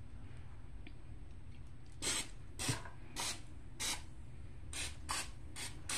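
Cooking spray squirted onto a waffle iron in about eight short hissing bursts, beginning about two seconds in.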